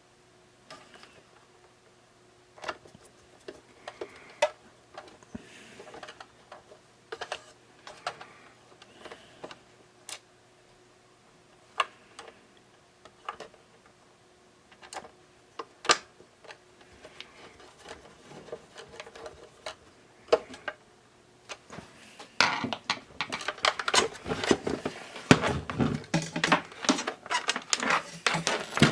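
Small clicks and knocks of a plastic radio cassette player being handled and put back together: a screw being fitted and parts set in place, one sharp tap at a time, turning into a dense run of handling clatter near the end.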